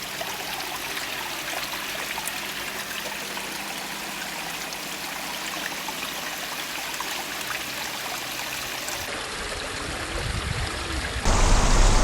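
Pond water running and trickling steadily. Near the end it gives way to a louder low rumble.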